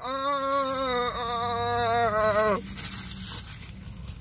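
A man yawning aloud: one long, drawn-out voiced yawn that breaks in pitch a couple of times and stops about two and a half seconds in.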